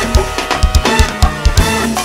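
Live go-go band music: a drum kit beat of kick and snare hits with percussion, under sustained pitched chords.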